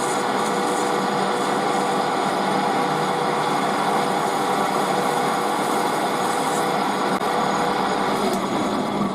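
Metal lathe running steadily, its motor and gearing giving a constant multi-tone hum, while a parting blade shaves a light 0.2 mm cut off a brass workpiece.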